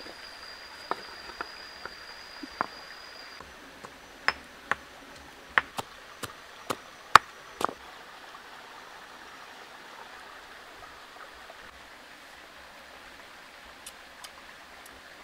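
Stream water running steadily, with a run of about a dozen sharp, irregular knocks in the first half: a stone pestle pounding chilies in a stone mortar.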